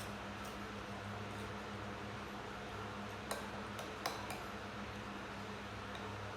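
A handful of light clicks, most of them close together a little past the middle, over a steady low hum.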